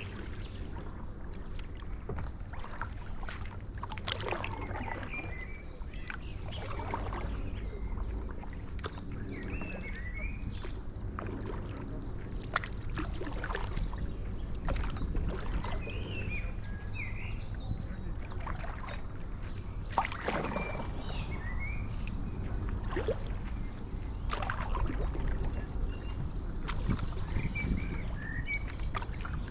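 Stand-up paddleboard paddle dipping and pulling through canal water, a splash every few seconds, over a steady low rumble. Birds chirp now and then.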